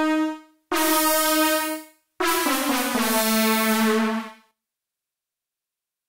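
Roland JD-800 software synthesizer playing its "SMPL Brass" preset: three synth-brass notes, each cut off cleanly, the last one lower and longest, ending about four and a half seconds in.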